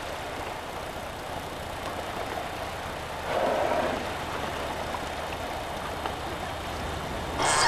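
Small boat's motor idling as a steady low hum under water hiss, with a louder whoosh a little after three seconds in. Right at the end a high, drawn-out tone with overtones begins.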